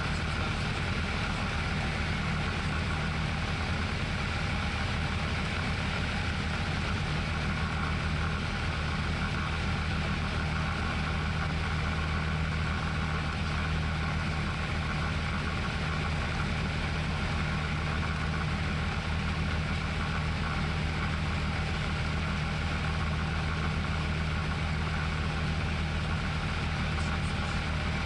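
Tecnam P2002 Sierra's Rotax 912 four-cylinder engine and propeller running steadily in flight, heard inside the cockpit as an even, low drone.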